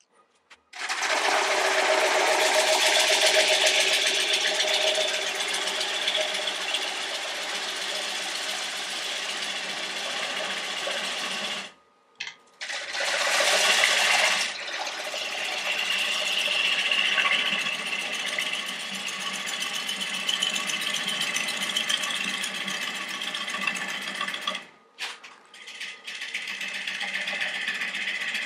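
Bowl gouge cutting green maple on a spinning square bowl blank on a lathe, throwing off wet shavings. The cutting stops briefly about twelve seconds in and again around twenty-five seconds.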